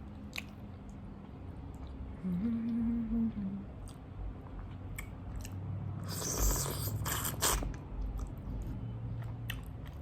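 Close-miked chewing and eating, with wet mouth clicks throughout. A short closed-mouth hum of enjoyment ("mmm") comes about two seconds in, and a louder crunching or rustling stretch follows around six to seven seconds.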